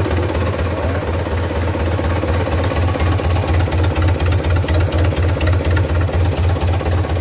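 Mitsubishi 4D32 four-cylinder diesel engine idling on the test stand, with a steady low, even pulse and diesel clatter on top.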